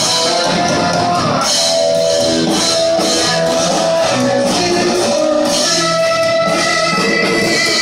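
Live heavy metal band playing loud: electric guitars holding and changing notes over a drum kit, with no vocals.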